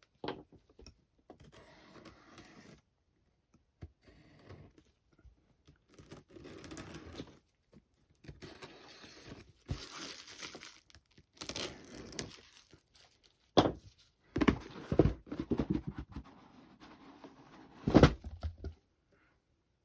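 A plastic model kit's cardboard box being opened and its plastic-wrapped parts handled: stretches of crinkling and tearing plastic, with a couple of sharp knocks near the end.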